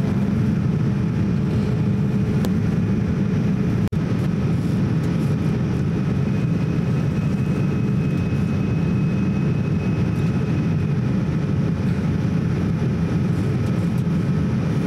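Cabin noise of a Boeing 787-8 airliner climbing after takeoff: a steady low rumble of jet engines and airflow heard from a window seat over the wing, with faint steady whine tones above it. A very brief dropout about four seconds in.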